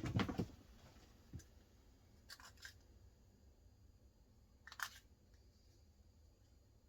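Quiet plastic clicks and handling of an Xbox 360 controller and its AA batteries: a cluster of clicks at the start, a few scattered single clicks, and a sharper click just before five seconds in.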